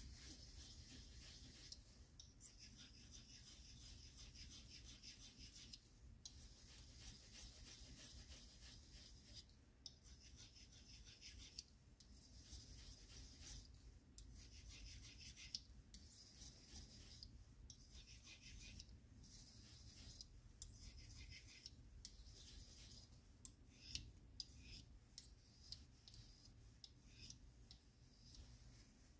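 Pocketknife blade stroked back and forth across a small handheld whetstone, steel scraping on stone in faint, quick repeated strokes that come in runs with short pauses between them.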